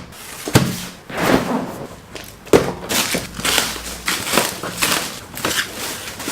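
Packaging being handled during an unboxing: irregular rustling and crinkling with crackles and a few sharper knocks.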